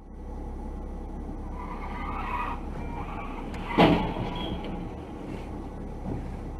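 Car cabin heard through a dashcam: steady engine and road noise, with one sudden sharp bang just under four seconds in.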